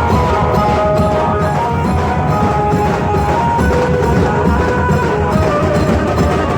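Music: a melody of held notes over fast, dense drumming, at an even, loud level.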